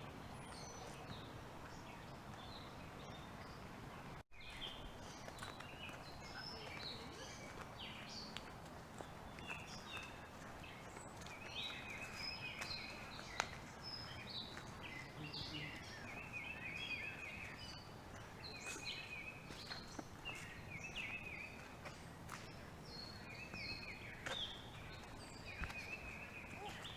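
Birds chirping and singing short, wavering trills over and over, several calls overlapping, over a steady outdoor background hiss. The sound cuts out for a moment about four seconds in.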